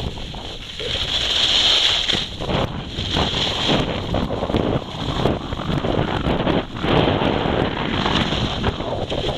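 Wind rushing over the microphone of a skier's body-worn camera, mixed with skis scraping and carving on packed snow during a fast downhill run. The hiss swells and fades in waves.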